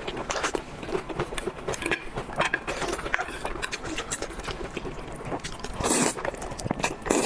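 Close-miked mukbang eating: irregular biting, chewing and crunching of food with wet clicks, and two louder crunches near the end.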